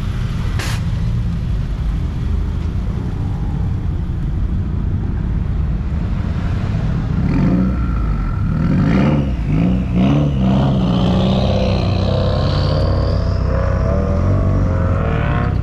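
Car engines idling with a steady low rumble, with revs rising and falling about halfway through and a rising whine near the end.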